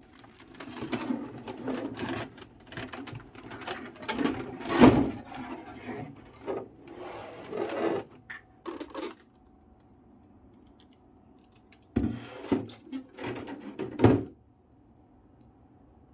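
Figure packaging being handled and opened: cardboard and plastic rustling, scraping and knocking in two bouts, with a pause between them.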